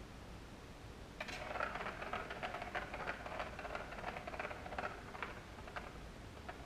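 Plastic ball rolling around the enclosed plastic ring track of a Catit Circuit cat toy: a rattling run of clicks starts about a second in, lasts a few seconds, then thins to a few scattered clicks near the end.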